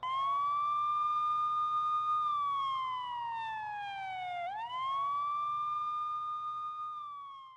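Police car siren wailing. One tone rises, holds, slides slowly down, then rises and holds again before fading out at the end.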